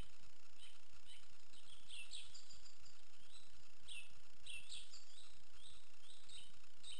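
Songbirds singing, a continual run of short chirps and quick falling notes from several birds at once, over a steady hiss.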